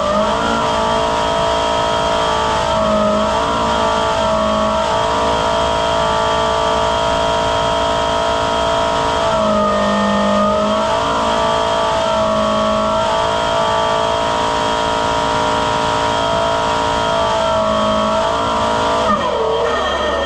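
Hydraulically driven turbine blower running at full speed: a steady, loud whine of several tones, the pitch dipping briefly every few seconds. Near the end the pitch falls away quickly.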